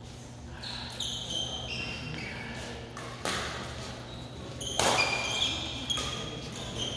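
Badminton play: a few sharp racket-on-shuttlecock smacks, the loudest about two-thirds of the way through, mixed with short high squeaks of court shoes on the floor.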